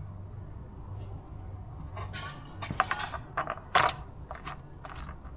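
Light metallic clinks and clicks of nuts and washers being handled and set onto the studs of an outboard's water pump housing. Several come in quick succession from about two seconds in, the loudest a little past the middle.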